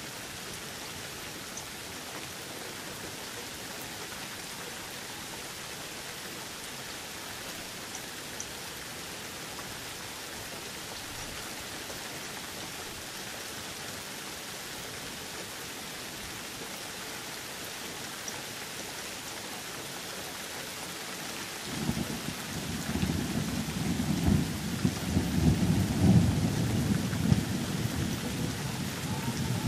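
Steady rain falling. About three-quarters of the way through, a long roll of low thunder begins and rumbles on, loudest shortly before the end.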